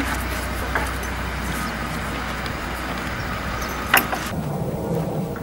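Steady outdoor background rumble and hiss, with one sharp click about four seconds in.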